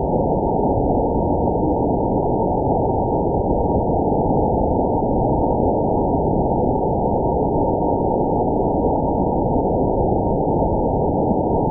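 Waterfall's steady rushing water, played back slowed down so that it is a low, dull, unbroken rumble with nothing high in it.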